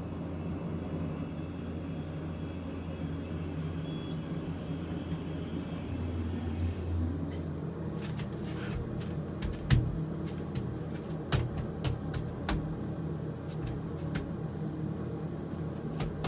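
Hydraulic elevator cab running with a steady low hum and rumble. From about halfway through come scattered sharp clicks and knocks.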